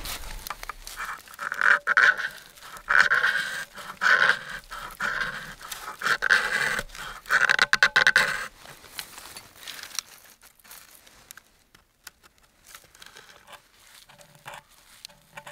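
A knife shaving curls off a split stick of firewood: about six long rasping strokes, each under a second, then only faint small scrapes from about eight seconds in.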